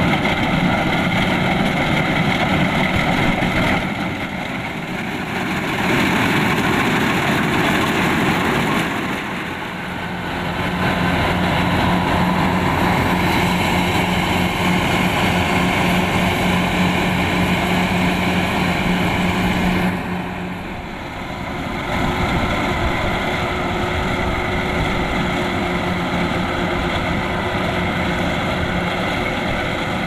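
Kubota DC-105X rice combine harvester's diesel engine running steadily while it works. The sound drops briefly three times.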